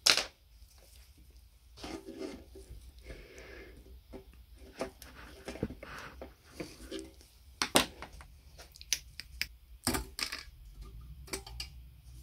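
Hand tools working on an old ship's lamp's metal housing: a screwdriver and pliers clicking and scraping against metal, with a few sharp knocks.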